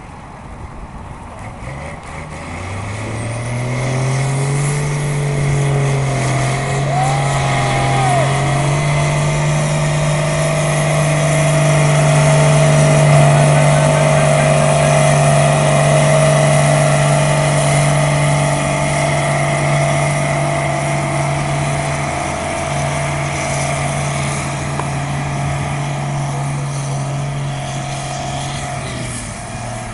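Nuffield 4/65 tractor's four-cylinder diesel engine revving up about two seconds in and held at high revs under heavy load as it pulls a weight-transfer sled. It is loudest midway and fades as the tractor moves away, with the revs dropping near the end.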